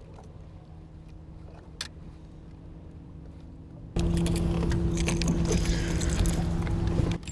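Baitcasting rod and reel being handled and cranked, with faint clicks over a steady low hum. About four seconds in, a much louder rush of noise with rattling and ticking comes in, and it cuts off abruptly just before the end.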